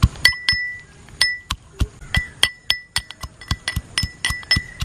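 Metal pestle pounding garlic and green chillies in a small mortar: quick repeated strikes, about three to four a second with a brief pause about a second in, each with a short clinking ring.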